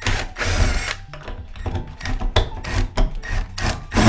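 Hands handling small fixing hardware, the sprayer bracket and its screws: a rustling rub in the first second, then a run of irregular small clicks and knocks.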